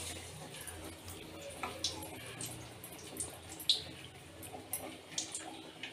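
Masala vadas (chana dal fritters) frying in hot oil in a kadai, the oil sizzling with scattered crackles and pops, the sharpest a little past halfway.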